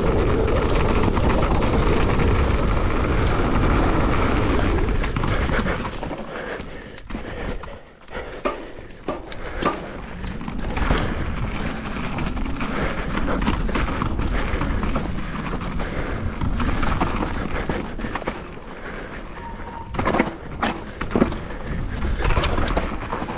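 Downhill mountain bike ride: wind rushing over the microphone at speed for the first few seconds, then tyres rolling over dirt and rocks with many sharp clatters and knocks from the bike.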